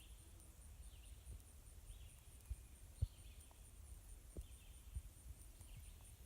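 Faint footsteps of a hiker walking a woodland trail, soft irregular thumps roughly once a second, over a steady high insect trill and a few faint chirps.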